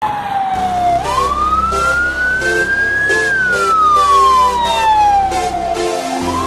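Fire truck's siren on wail: a single tone that rises slowly in pitch over about two seconds, falls back over nearly three, and starts climbing again near the end, with music with a steady beat underneath.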